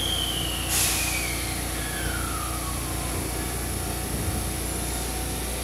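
Sanyo Electric Railway electric train standing at the platform with its equipment humming steadily. About a second in there is a short burst of air hiss, and a single whine falls in pitch over the next couple of seconds.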